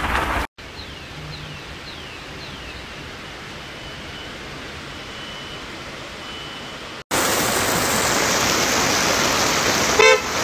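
Heavy rain and rushing floodwater make a loud, even hiss in a flooded street. It comes after a much quieter stretch of faint background noise with a few high chirps. Just before the end there is a short, loud pitched sound.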